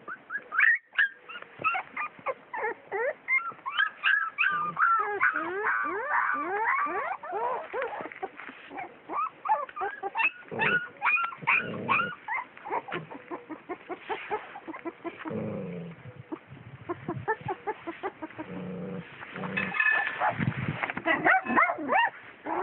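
Puppies whining and yelping over and over in many short, high squeals that bend up and down in pitch, with a few lower, heavier calls in between.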